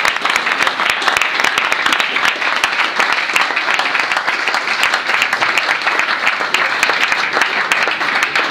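Audience applauding: dense, steady clapping from a seated crowd after a song.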